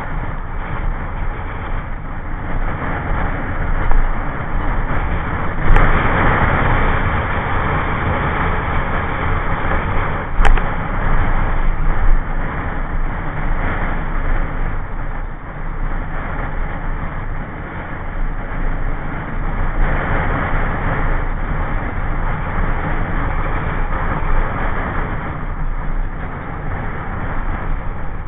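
Steady wind rushing over the microphone with road rumble from travelling down a paved road, swelling louder a few times.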